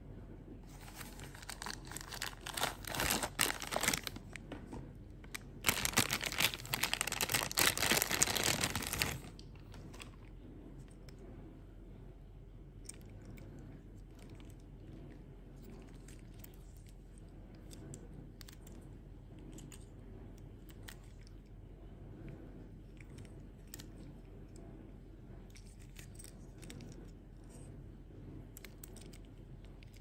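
Small cardboard toy box being opened by hand, with tearing and crinkling of the packaging in two loud spells during the first nine seconds. After that, only faint clicks and taps as the small die-cast motor grader toy is handled.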